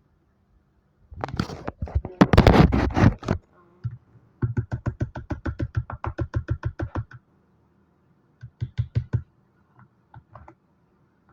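Close handling noises: a loud rush of noise lasting about two seconds, then a fast, even run of clicks or knocks, about eight a second, and a short run of a few more near the end.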